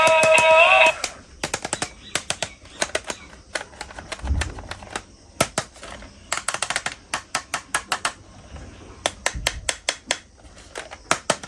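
Music ends about a second in, followed by sharp clicks and clacks in quick, irregular runs, hard objects knocking together.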